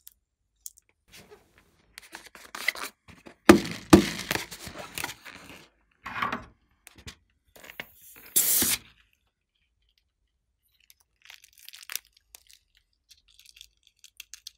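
Rubber balloons being handled and cut with scissors: rustling with two sharp snaps about three and a half seconds in, then a short hiss of air as scissors snip open an inflated balloon about eight seconds in.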